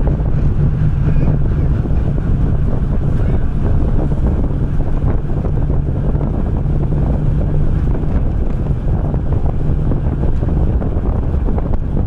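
Wind buffeting the microphone at an open window of a moving vehicle, over the steady low drone of its engine and tyres on the road.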